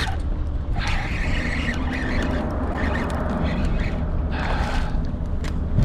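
Wind buffeting the action-camera microphone as a steady low rumble, with a few short stretches of hissing noise layered over it.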